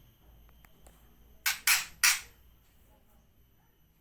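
White-rumped shama giving three short, harsh calls in quick succession about a second and a half in. The bird is recovering from a cough, flu and hoarseness and is back in voice.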